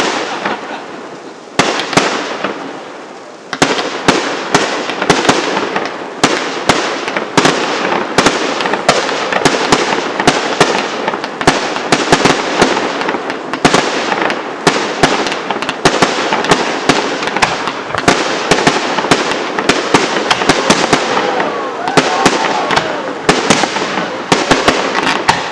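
Aerial fireworks display: shell bursts banging one after another over a continuous crackle. A few separate bangs at first, then about three and a half seconds in a rapid barrage of many bursts a second.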